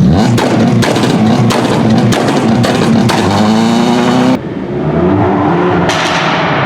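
A car engine revving with a rapid string of sharp pops and bangs from the exhaust, several a second. About two-thirds of the way through the bangs stop abruptly and the engine carries on at a lower, smoother note, with one more brief burst near the end.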